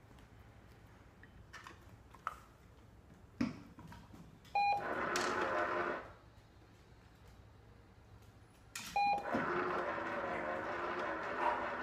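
PetSafe Treat & Train remote-controlled treat dispenser signalling twice: a short beep, then its motor turning the tray and rattling kibble out. The first round of dispensing lasts about a second and a half, about halfway through. The second starts near the end and runs on. A sharp click comes a little before the first beep.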